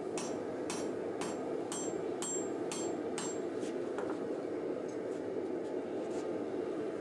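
Sledgehammer blows on hot W1 steel bar over an anvil, rough-forging a blade blank: about two strikes a second with a short metallic ring after each, slowing to a few lighter, spaced blows about halfway through. A steady rushing noise runs underneath.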